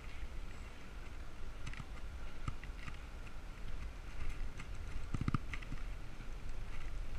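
Steady wind and road rumble on a bicycle-mounted action camera while riding, with scattered light ticks and clicks and a short cluster of them about five seconds in.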